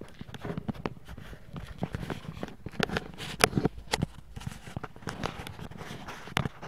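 Two dogs playing rough: scuffling with irregular taps and knocks of paws on the floor, the sharpest knock about three and a half seconds in.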